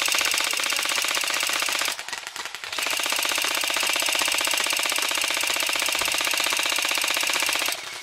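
Airsoft M16 replica firing on full auto: a fast, even rattle of rapid shots in long bursts, breaking off for about a second near two seconds in, then running again and stopping just before the end.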